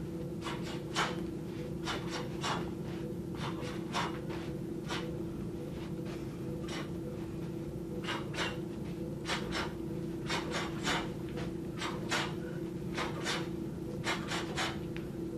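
A woman shadowboxing: irregular short, sharp puffs of breath and movement sounds come with each flurry of punches, a few a second at the busiest. A steady low hum runs underneath.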